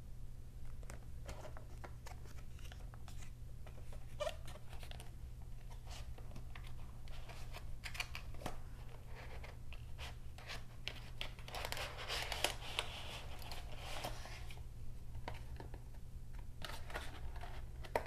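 The cardboard retail box of a Razer Basilisk V3 gaming mouse is handled and opened. Scattered taps and scrapes of paperboard flaps are heard, with a longer stretch of rustling and scraping about twelve seconds in. A steady low hum runs underneath.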